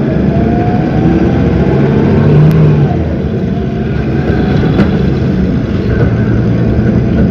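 Cummins ISB 6.7 diesel engine of a city bus running under power, with a whine rising in pitch over the first few seconds as the bus picks up speed, then easing about three seconds in.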